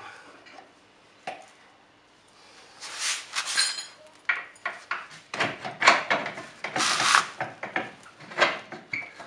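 Metal clinking, knocking and scraping as a steel bolt and hand tools are handled and the bolt is worked through the lower control arm's front silent-block bushing and bracket. Starts about three seconds in and is busiest in the middle.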